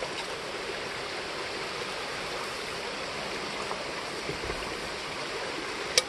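Creek water flowing and rushing steadily, with one sharp click at the very end.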